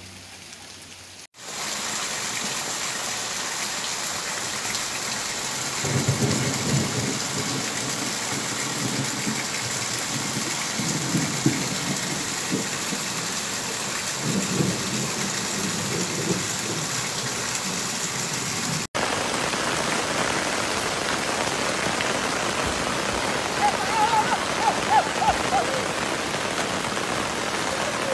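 Heavy rain falling: a steady, even hiss, with low rumbling that comes and goes through the middle. The sound cuts abruptly to another downpour about two-thirds of the way through.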